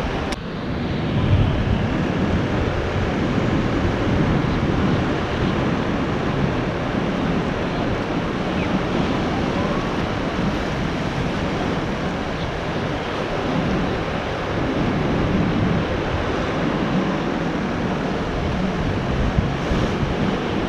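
Wind buffeting the microphone over the wash of sea surf, a steady rushing noise with a gusty low rumble.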